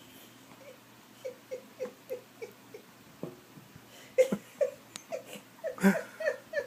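A person laughing softly in short, rhythmic bursts, about three a second, then laughing louder and faster in the second half, with a few light knocks among the laughs.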